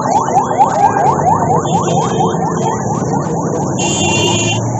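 Police car siren in fast yelp mode: quick rising sweeps, about four a second, fading out about three seconds in.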